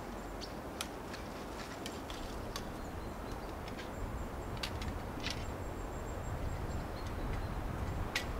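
Dry twigs and brush crackling and snapping underfoot or in hand as a person moves through dead branches in the forest. The snaps are sharp and come irregularly, several a second at times.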